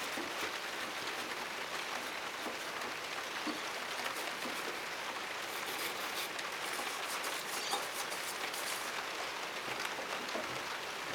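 Steady rain falling and pattering on surfaces, with scattered faint ticks of drops.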